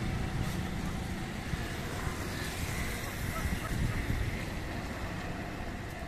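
A low, uneven rumble of outdoor background noise, with no clear gull calls standing out.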